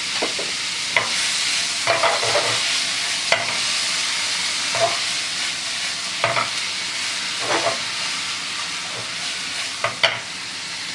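Thin-sliced pork sizzling in a hot nonstick frying pan with soy-sauce tare just added. The meat is stirred and turned with wooden chopsticks, which make short knocks and scrapes against the pan every second or so.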